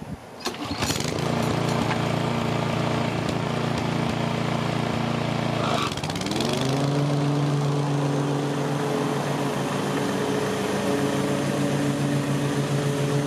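Toro TimeMaster walk-behind lawn mower engine running steadily under mowing load. About six seconds in, its note rises and settles at a higher pitch.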